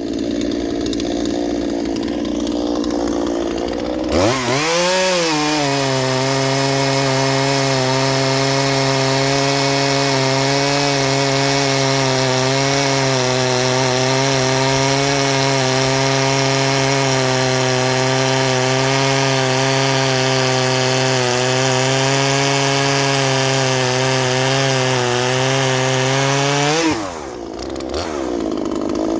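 Two-stroke chainsaw revving up about four seconds in and cutting through hardwood at a steady, held pitch for over twenty seconds, then dropping off the throttle near the end.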